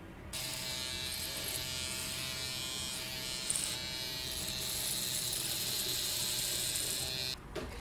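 Electric hair clippers running steadily as they shave the hair short on the back of the scalp to clear the donor area. They switch on just after the start and cut off shortly before the end.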